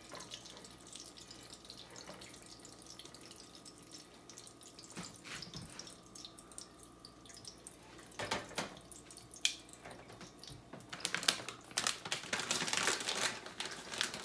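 Tortilla frying in oil in a nonstick skillet, sizzling with a steady patter of small crackles. The crackling gets denser and louder in the last few seconds.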